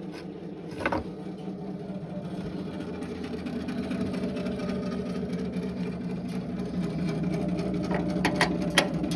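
Small gasoline engine of a Harbor Freight bandsaw sawmill running at a steady speed, slowly growing louder, with a knock about a second in and a few sharp clicks near the end.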